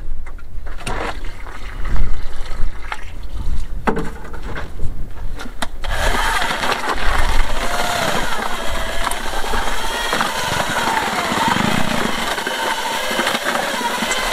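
Water poured from a watering can into a bucket of lime, with a few knocks. From about six seconds in, a corded electric drill with a paddle mixer runs steadily, churning the lime and water into lime wash in the plastic bucket.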